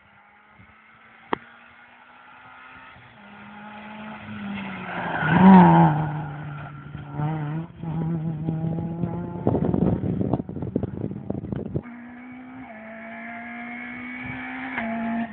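Rally car engine approaching and passing at speed, loudest about five seconds in with its pitch dropping as it goes by, then pulling away through gear changes. A rough rushing noise follows, and near the end a second rally car's engine is heard coming closer.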